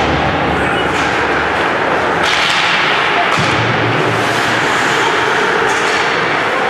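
Ice hockey play: a steady hiss of skates on ice and arena noise, broken by a few sharp clacks and thuds of sticks, puck and bodies against the boards.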